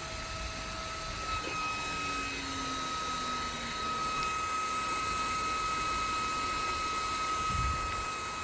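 Livewell Tornado cooling handheld fan running: a steady high-pitched motor whine over rushing air noise, with a small click about a second in and a low bump near the end.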